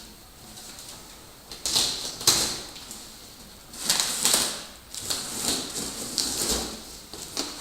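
Cardboard shipping box being opened by hand: several bursts of scraping and rustling, with a sharp click about two seconds in.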